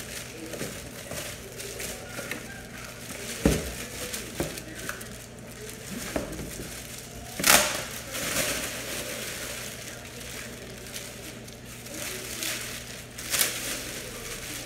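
Plastic packaging crinkling and rustling as a rubber charging mat is unwrapped and pulled out of its clear plastic bag, with three sharper, louder rustles, the loudest about halfway through.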